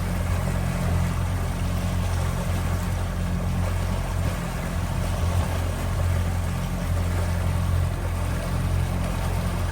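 Motorboat engine running at a steady cruising speed, a low even hum under a steady rush of water and wind.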